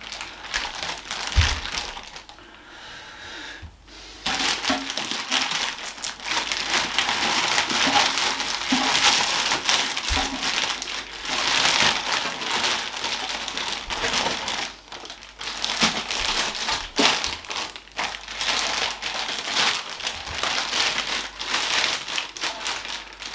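Clear plastic bag crinkling and crackling as it is handled and pulled open, quieter for a couple of seconds near the start and then dense and continuous. A couple of short low knocks, about a second in and again about ten seconds in.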